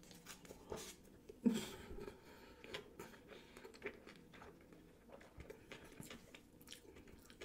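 Close-miked chewing of a mouthful of sushi roll: faint, scattered wet mouth clicks and smacks, with a louder click about one and a half seconds in.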